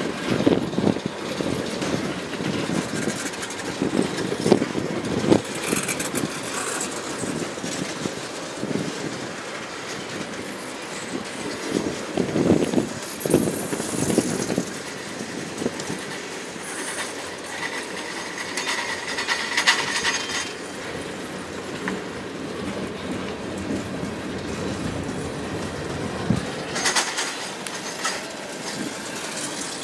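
Freight cars (tank cars and covered hoppers) rolling past close by, their wheels clicking steadily over the rail joints. A thin wheel squeal sounds for a few seconds past the halfway point.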